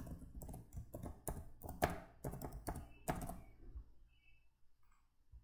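Typing on a computer keyboard: a quick run of keystrokes for about four seconds, then stopping.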